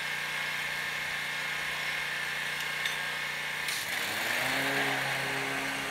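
Stand-on commercial lawn mower engine running steadily. About four seconds in, its note dips and settles lower, and a louder rushing hiss comes up.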